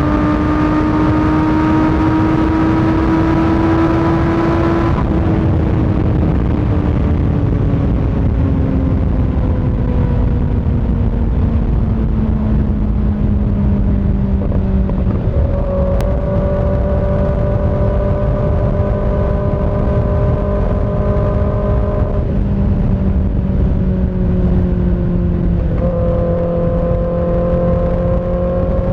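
Kawasaki ZX-6R inline-four running through an aftermarket M4 GP19 exhaust with a dB-killer insert, riding at speed under a steady rush of wind noise. The engine note holds, then sinks slowly as the bike rolls off. It steps up in pitch about halfway through, drops back a few seconds later, and rises again near the end.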